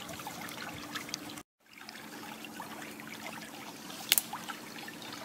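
Shallow water trickling steadily through a ditch past a sheet-net fish trap, with a faint low hum underneath. The sound cuts out briefly about a second and a half in, and a single sharp click comes about four seconds in.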